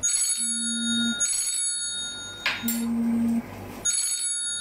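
A phone ringing: an electronic ringtone repeating about every two seconds.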